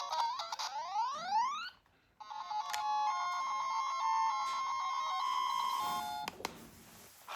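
Electronic beeping tones. A run of quick rising sweeps is followed by a short break about two seconds in, then a run of steady, stepped beeps that stops about six seconds in.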